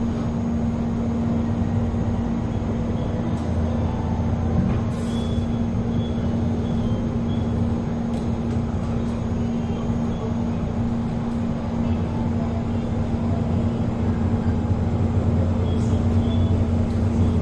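Cabin running noise of a Metro Cammell 'MLR' electric multiple unit train under way: a steady rumble with a constant hum, growing a little louder near the end.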